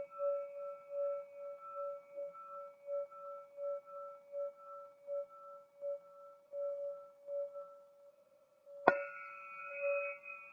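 Crystal singing pyramid ringing with one sustained tone and its overtones, wavering in level about every 0.7 s as it slowly fades. About 9 s in it is struck again with a striker, giving a sharp hit and a fresh, brighter ring.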